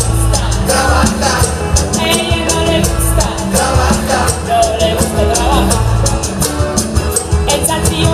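Live band music with a woman singing: acoustic guitar, electric guitar, bass guitar, congas and drum kit over a steady beat, heard through the PA from the audience.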